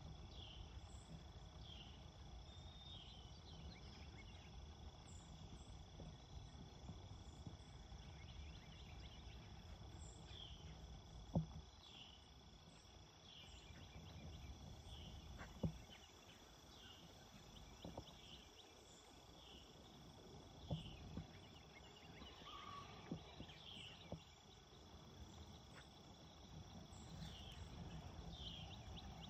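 Faint early-morning countryside ambience: a steady high insect trill with scattered short high chirps from birds, over a low rumble. Two sharp clicks stand out, about 11 and 16 seconds in.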